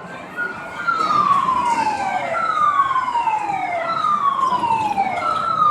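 A siren-like tone sliding down in pitch, repeated about every one and a half seconds, starting about a second in.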